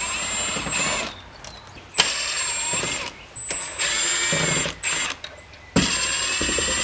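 Cordless drill/driver running in several short bursts of about a second each with a high whine, working the screws of a car door speaker.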